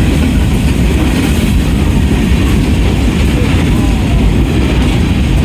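Steady low rumble of a passenger train running along the rails, heard from aboard, with a hiss of running noise above it.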